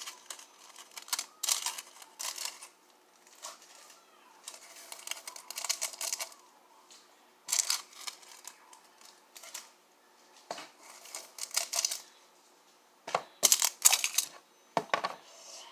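Small plastic glitter containers being shaken and tapped over a bowl of glue, in short irregular bursts of crisp rattling and clicking.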